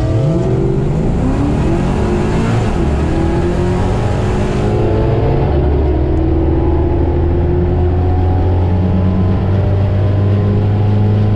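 LS-swapped Fox-body Mustang's 5.3 L V8 at full throttle on a drag pass. The revs climb quickly in the first couple of seconds, then the engine holds a steady, loud high-rev drone.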